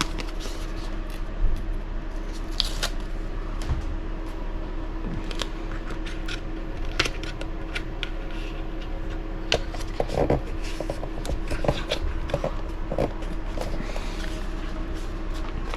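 Small handling noises of an adhesive foam pad being fitted onto an RC buggy chassis: scattered light clicks, taps and rustles over a steady low hum.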